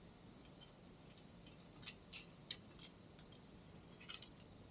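Near silence with a few faint, scattered clicks and light clinks of small camera-mount parts being handled and fitted together; the strongest come about two seconds in and again near the end.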